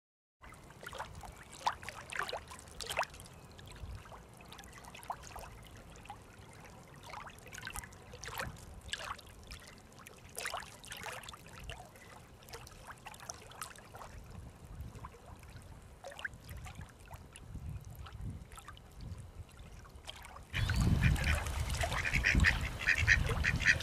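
Short bird calls scattered through, then coming thicker and louder about twenty seconds in, over a low rumble.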